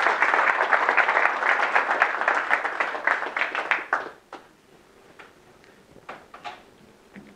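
Audience applauding, a dense patter of many hands clapping that dies away about four seconds in, leaving a few scattered taps.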